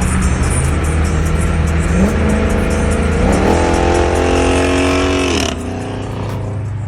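Car engine running loud, revving up about two seconds in and again about three seconds in, holding high, then dropping back. The loud engine sound cuts off abruptly about five and a half seconds in, leaving music with a steady beat underneath.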